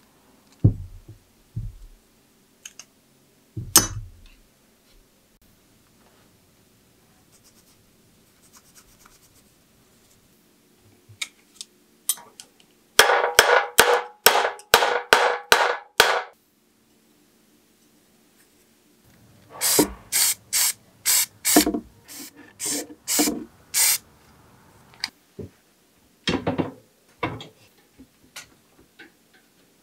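Hand sanding: a small bicycle part rubbed back and forth on sandpaper, first in a quick run of about three strokes a second, then in a second run of slower, separate strokes. A few knocks of parts being handled come before and after.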